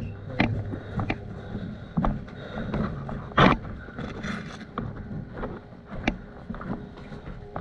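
Irregular clicks, knocks and rustling, with one louder short burst of noise about three and a half seconds in.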